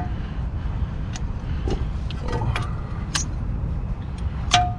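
Scattered sharp metal clicks and taps from a C-clamp being set and worked against a brake caliper to push the piston back, over a steady low rumble. Near the end comes one louder clink with a short metallic ring.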